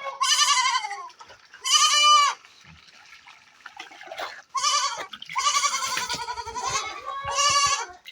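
Goats bleating: about five wavering calls, the longest lasting over a second, with short gaps between them.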